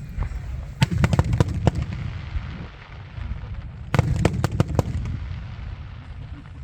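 Aerial fireworks going off: two quick volleys of five or six sharp bangs each, the first about a second in and the second about four seconds in, over a low crowd murmur.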